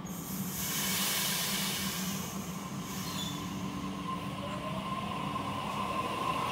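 Sydney Trains Waratah electric train at the platform: a burst of air hiss at the start, then the rising whine of its traction motors as it begins to pull away, over a steady rumble.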